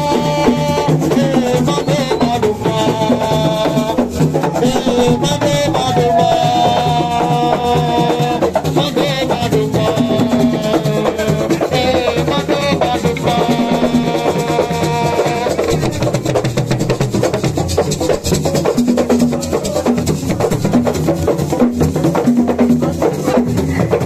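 Assiko music: several square wooden frame drums struck by hand in a dense, steady rhythm, with a melody line gliding over the drumming.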